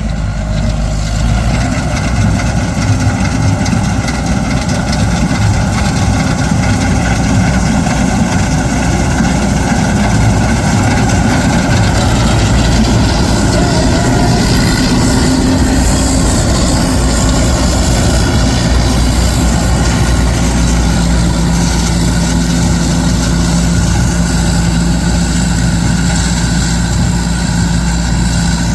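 Loud, steady running of a heavy diesel farm-machinery engine, from a combine harvester or a tractor.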